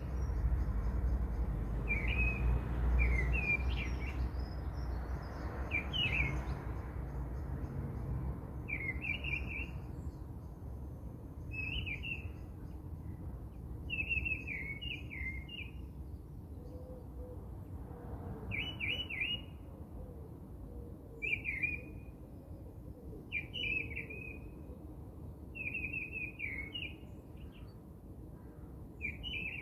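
A small bird chirping short twittering phrases every two seconds or so, over a low steady rumble that is loudest in the first few seconds.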